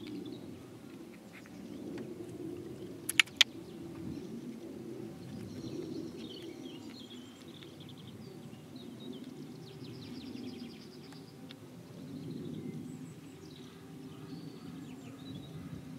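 A small terrier panting steadily with its mouth wide open after exercise. Birds chirp faintly in the background, and two sharp clicks come about three seconds in.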